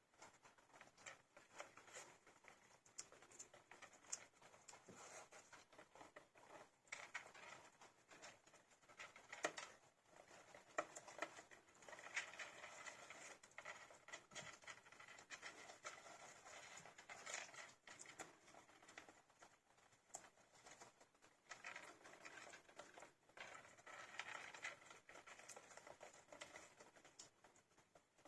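Young hamster pups scrabbling and rustling about, a faint continuous patter of tiny clicks and scratches.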